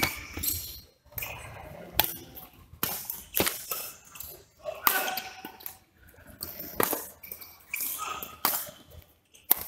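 Badminton rackets striking a shuttlecock: sharp pops at irregular intervals as rallies are played.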